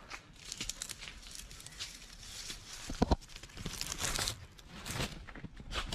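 Leaves and twigs of a walnut tree rustling and crackling as a hand reaches among them and pulls off a green walnut, with a sharp snap about three seconds in.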